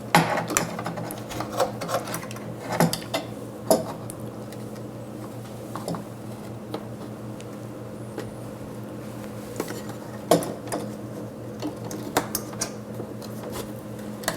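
Irregular clicks, knocks and clinks of metal and plastic parts being handled as a water pump is fitted into a cassette sterilizer, over a steady low hum. The knocks are loudest at the start and again around ten seconds in.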